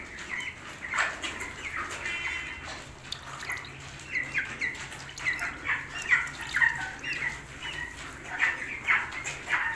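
Young white broiler chickens peeping and squawking: many short, high calls that come thicker from about three and a half seconds in.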